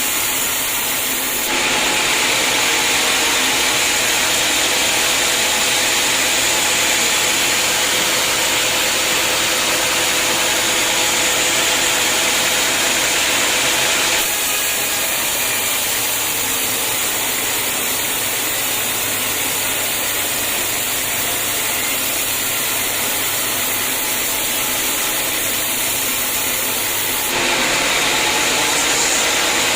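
Homemade band sawmill running, its blade sawing through a hard acacia log with a loud, steady hiss and machine noise. The sound shifts abruptly in tone and loudness about a second and a half in, near the middle, and near the end.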